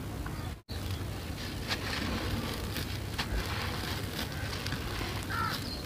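Hands crushing a packed mound of gritty sand-and-cement mix, a dense crackling crunch as the grains break apart and trickle down. The sound cuts out for a moment just after the start.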